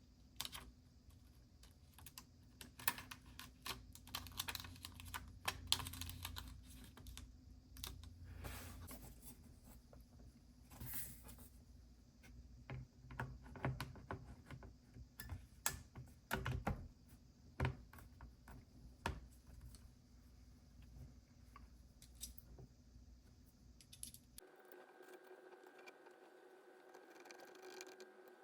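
Irregular small clicks and taps of hands handling laptop parts, with a few louder knocks among them. Near the end the clicking stops and a faint steady hum takes over.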